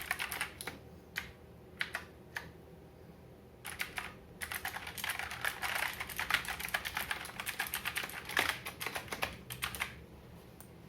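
Typing on an Aula G909 mechanical keyboard: a few scattered keystrokes over the first two seconds or so, then a long run of fast, continuous typing from about four seconds in until shortly before the end.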